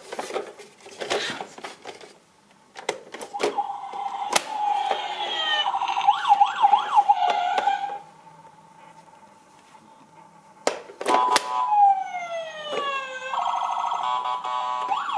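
Dickie Toys police car's electronic siren sound effect from its small built-in speaker. It plays twice: each time a few falling tones lead into a fast up-and-down warbling siren. Plastic clicks of buttons and handling come before each run.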